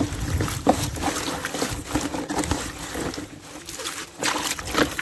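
Water trickling and sloshing with irregular splashes as aloe vera stems are washed by hand in water.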